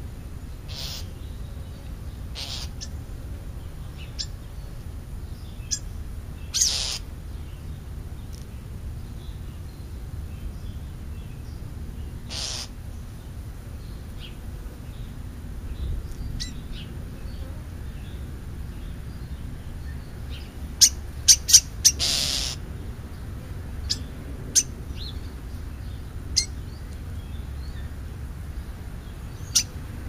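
Short harsh calls and sharp clicks from a small flock of dark songbirds feeding on the ground, scattered and irregular. About two-thirds of the way in comes a quick run of loud clicks and then a longer harsh call. A steady low rumble lies underneath throughout.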